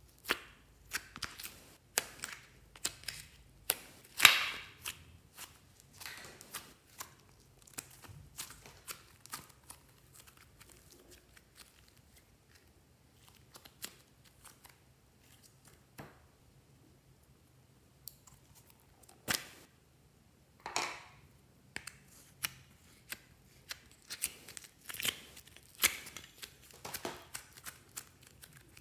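Thick slime squeezed, folded and stretched by hand, giving irregular sticky clicks, pops and crackles, with a quieter stretch in the middle.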